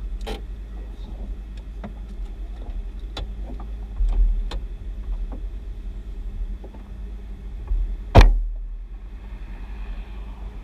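Low steady rumble inside a stationary car with its engine running, broken by scattered clicks and knocks and one loud thump a little after eight seconds in.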